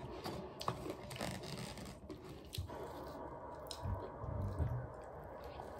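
Close, faint mouth sounds of chewing a chopped cheese sandwich, with small scattered clicks and crackles as the soft roll is handled.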